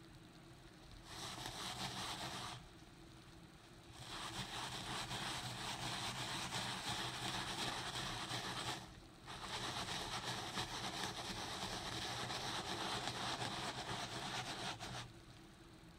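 Stiff-bristled hand brush scrubbing a looped-pile rug worked with a white powder cleaner, the bristles rasping on the pile. It comes in three bouts: a short one about a second in, then two long ones broken by a brief pause near the middle.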